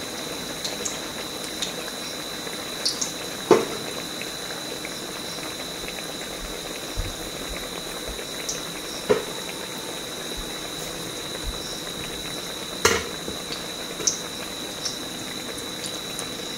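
Masoor-dal kababs frying in hot oil in a kadai over a low flame: a steady sizzle with a few sharp crackles or clicks.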